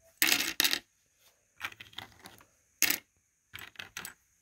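Small fish-shaped game pieces clicking and clattering as they are dropped one after another into a plastic boat tray: two sharp clacks in the first second, a scatter of softer ticks, another sharp clack about three seconds in and a few more near the end.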